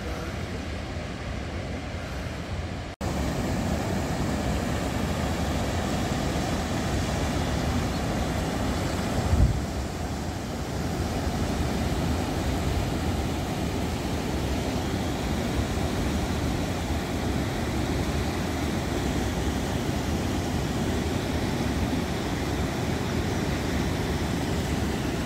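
River rapids and a small waterfall rushing steadily, an even wash of white-water noise that gets louder about three seconds in. A brief low thump comes about nine and a half seconds in.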